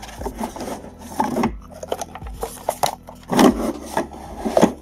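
Hard plastic video cassette case being handled and slid over cardboard: rubbing and scraping with scattered clicks and knocks, loudest about three and a half seconds in.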